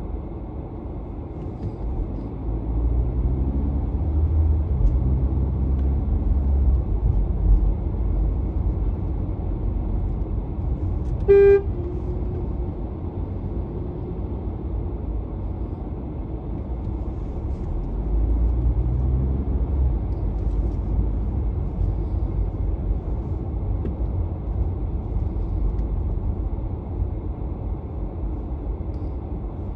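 Low, steady rumble of a car driving in city traffic, swelling twice, with one short car horn toot about eleven seconds in.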